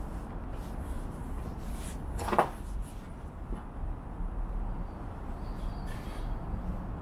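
A single short, sharp knock about two and a half seconds in, over a steady low background rumble.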